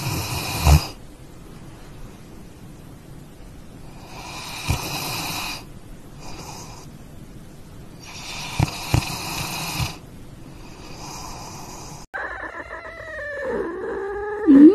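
A sleeping husky snoring, slow noisy breaths about every four seconds, each lasting a second or so. After a cut about twelve seconds in, a cat's wavering, drawn-out vocal sound takes over and is loudest near the end.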